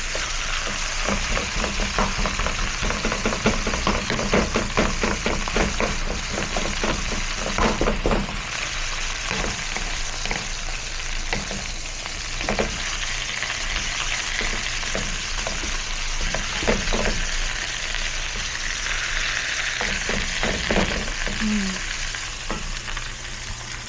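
Ground beef sizzling as it fries in a pan, with a utensil stirring and scraping it. The scrapes are quick and frequent for the first several seconds, then come more sparsely.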